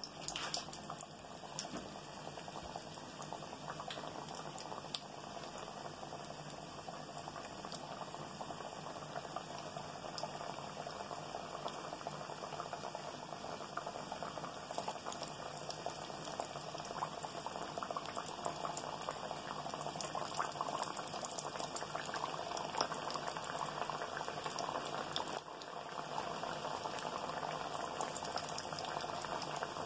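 Yeast-dough doughnuts frying in hot oil in a pan: a steady sizzle full of fine crackles and pops.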